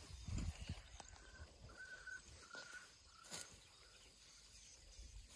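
Faint low thuds and rustling of an African elephant pulling up grass with her trunk and kicking at the plants near the start. Then a bird whistles four short notes on the same pitch, followed by a single click.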